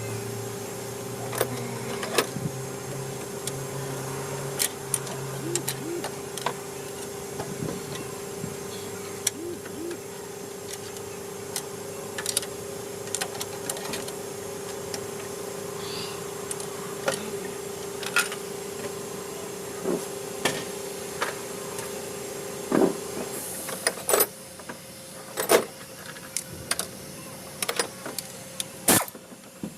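Workshop noise: a steady machine hum that stops about three quarters of the way through, under scattered metallic clicks and clanks of hand tools that grow louder and more frequent near the end.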